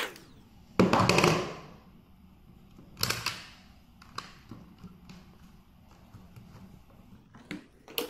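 Plastic floor brush head of a Moosoo TD1 cordless vacuum being taken apart by hand: clicks and scraping as the end cap is unclipped and the brush roll is pulled out. A loud rasping scrape about a second in, a shorter one about three seconds in, and a few small clicks near the end.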